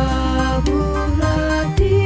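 Background music: sustained chords over a steady bass, the chord changing a few times.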